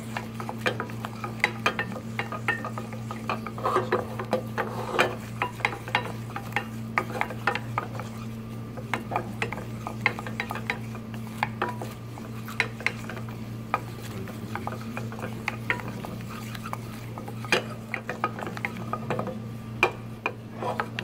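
Wooden spatula stirring and scraping a flour roux around a small stainless steel saucepan, with many irregular scrapes and taps against the pan, over a steady low hum. The roux is being stirred without pause as it toasts, to keep it from scorching.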